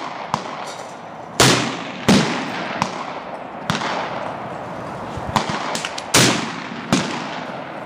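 Mosin-Nagant 91/30 bolt-action rifle firing full-power 7.62x54R rounds: two loud shots about five seconds apart, each with a long echoing tail. Fainter, sharper gunshots from other shooters come in between.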